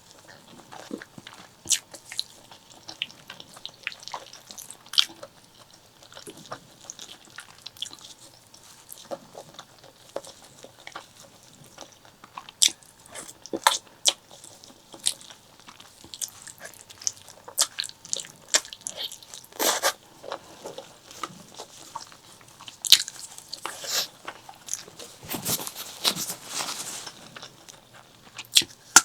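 Close-miked eating of spicy pork leg curry with white rice: wet chewing and mouth clicks that come irregularly, several a second. There are a few longer, noisier sounds about two-thirds of the way through and again near the end.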